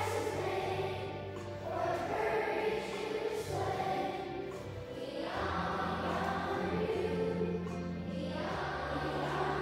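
A large group of schoolchildren singing together with instrumental accompaniment, the voices held over sustained low bass notes that shift every few seconds.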